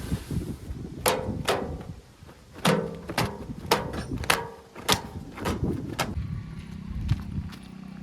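JCB 3DX backhoe loader at work: a run of sharp metallic clanks, about nine in five seconds, over its diesel engine running. Near the end the clanking stops and the engine settles into a steady drone.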